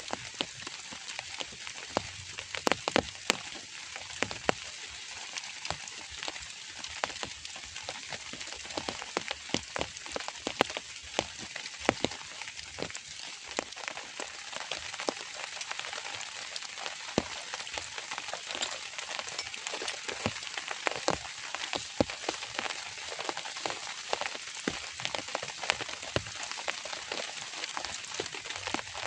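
Drizzle falling, a steady hiss with many separate drops ticking sharply close by.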